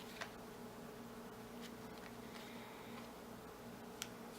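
Faint steady low hum with two light clicks, one just after the start and one near the end, as of washi tape or paper being handled.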